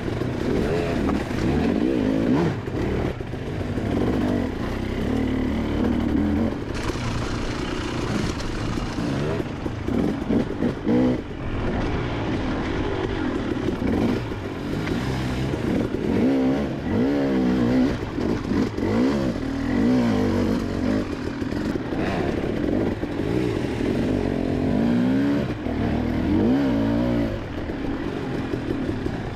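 Dirt bike engine being ridden, revving up and down over and over as the throttle is worked, its pitch rising and falling every second or two.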